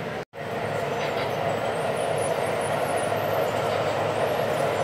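Two-rail O scale model train running on the layout, a steady even sound. The audio drops out completely for a moment just after the start.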